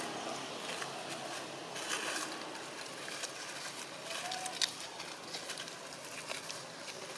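Outdoor ambience: a steady hiss with scattered small clicks and rustles, and a faint short rising-and-falling call about four seconds in.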